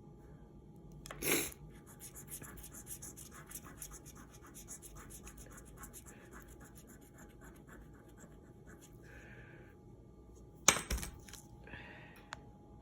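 Rapid scratching strokes, several a second, run for several seconds after a short nasal sniff about a second in. A sharp knock comes near the end, between two softer sniffs.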